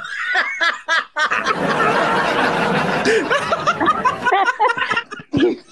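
Several people laughing hard over a video call in short, choppy bursts, with a loud rough noisy stretch through the middle.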